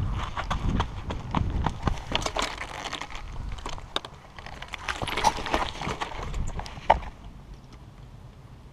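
Footsteps crunching over playground gravel, then clinks, knocks and a couple of short squeaks from a chain-hung tire swing as someone climbs onto it. The sound dies down about seven seconds in.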